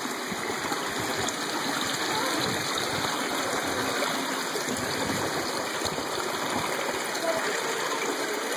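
Steady rushing water of a mountain stream running over rocks.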